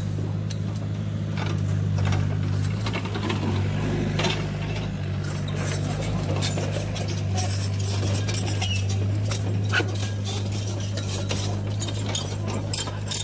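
Remote-control toy excavator working in soil: a steady low electric motor hum with frequent small clicks and rattles as the arm and bucket move.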